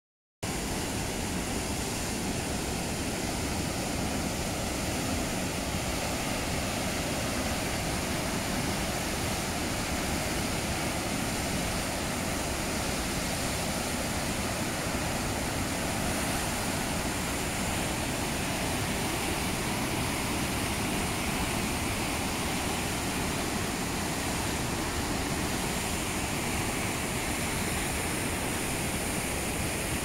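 Whitewater rapids of the Mekong at Somphamit Falls rushing between rock ledges: a steady, unbroken rush of water.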